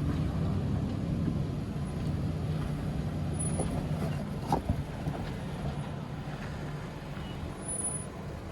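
Jeep Wrangler engine running steadily at low revs while crawling over rock, with one sharp knock about four and a half seconds in.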